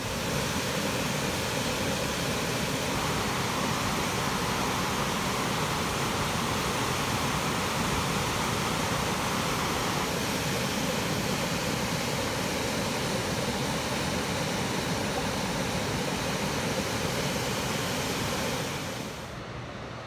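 Waterfall pouring into a river pool below a dam: a loud, even rush of water that drops to a quieter background near the end.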